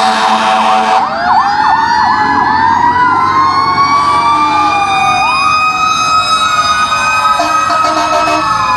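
Several fire truck sirens sounding together, loud. A fast yelp switches about a second in to slow, overlapping wails that rise and fall, with a short pulsing tone near the end.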